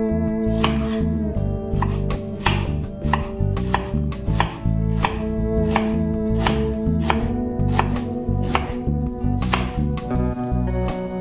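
Kitchen knife slicing a red onion on a bamboo cutting board, each stroke a knock of the blade on the wood, about one to two a second.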